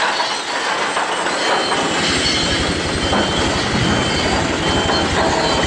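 Heavy construction machinery at work: the diesel engines of a vibratory roller compactor and dump trucks on a rock-fill dam site. It is a dense, steady rumble that grows heavier about two seconds in.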